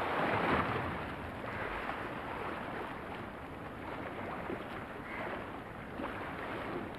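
Steady rushing noise of river water and wind on the microphone, swelling in the first second.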